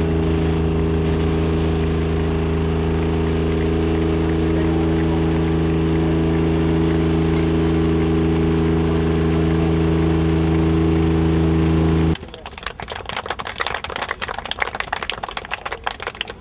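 A loud, steady hum of several unchanging tones that cuts off abruptly about twelve seconds in. It is followed by quieter outdoor noise from a crowd of players gathered together, with scattered voices and clicks.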